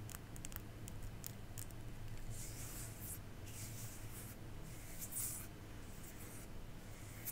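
Close-miked ASMR handling of small objects: light clicks and taps over the first couple of seconds, then soft scratchy rubbing strokes, a few seconds apart.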